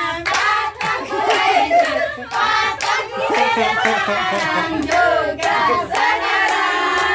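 A group of voices singing a birthday song, with hand clapping in time at about two claps a second.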